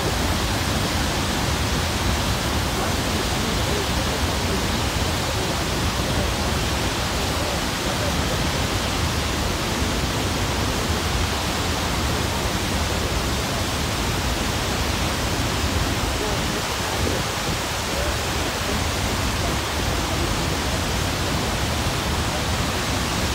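Niagara Falls pouring down: a steady, unbroken rush of falling water spread evenly from deep to high.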